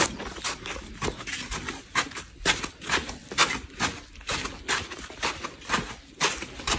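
Footsteps on sandy ground at a steady walking pace, about two steps a second.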